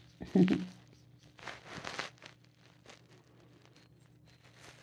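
Close handling and rustling noises: a short loud bump about half a second in, then a longer scuffing rustle around two seconds in and a few faint ticks.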